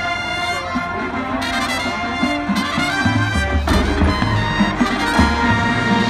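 High school marching band playing its field show, the brass section holding sustained chords, with low bass notes joining about three seconds in.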